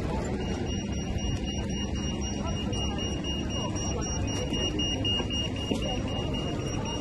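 Pedestrian crossing's audible signal: a high electronic tone that comes in about half a second in and holds steady with short breaks, over the constant noise of city traffic and passers-by.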